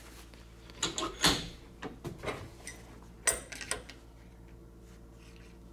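Metal clinks and knocks of an adjustable wrench being handled and fitted over an aluminum strip clamped in a steel bench vise, a few sharp knocks in the first four seconds, the loudest about a second in and again just past three seconds. After that only a faint steady hum remains.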